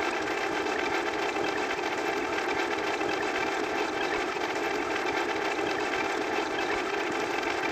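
A steady, unbroken machine-like noise, strongest in the middle range, used as a sound effect.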